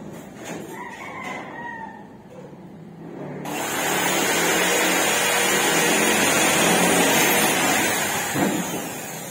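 A short faint pitched call about half a second in, then a loud steady rushing noise that starts abruptly about three and a half seconds in and fades away near the end.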